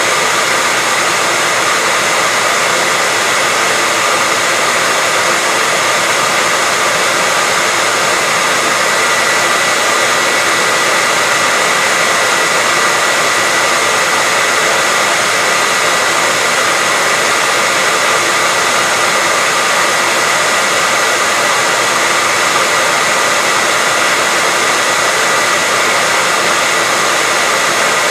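Handheld hair dryer running continuously at a steady speed: an even rushing hiss of fan and airflow with a constant whine near 2 kHz.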